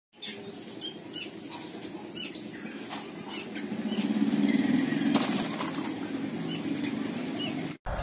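Spotted dove's wings fluttering and rustling against the hand holding it, loudest about four to five seconds in, with faint chirps of small birds in the background.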